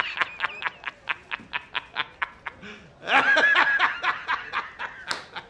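A man laughing hard. A high squealing laugh breaks into a rapid run of short ha-ha pulses, about five a second. It happens twice, with a second squeal about three seconds in.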